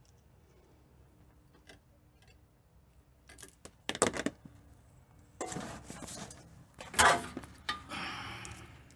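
Nylon zip ties being pulled tight with a rasping ratchet, with sharp clicks or knocks about four and seven seconds in.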